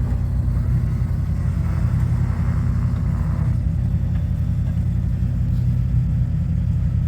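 Off-road truck engine running steadily at low revs: a constant low rumble.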